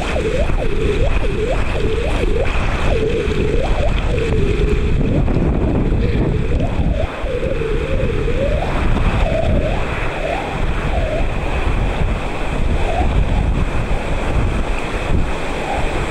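River white water rushing and splashing, heard through a waterproof camera housing, with wind buffeting the microphone. Repeated short gurgles come and go, thick in the first half and thinning out later.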